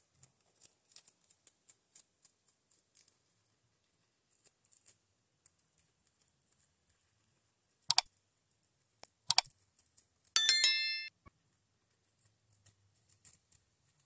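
A guinea pig chewing lettuce and dry food: faint, crisp little crunches in runs. About eight seconds in come two sharp mouse-click sound effects a second and a half apart, then a loud bell ding that rings for under a second.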